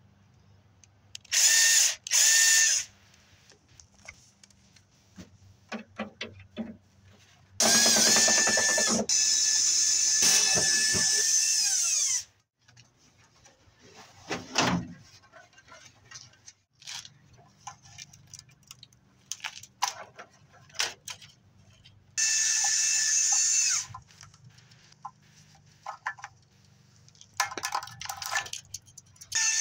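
Cordless drill-driver running in bursts to back out screws: two short runs near the start, a long run of about four seconds that winds down in pitch, then shorter runs later on. Between the runs there are clicks and knocks from parts being handled.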